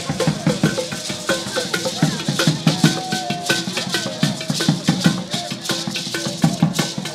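Traditional drum ensemble with shaken rattles playing a fast, busy rhythm, with voices over it.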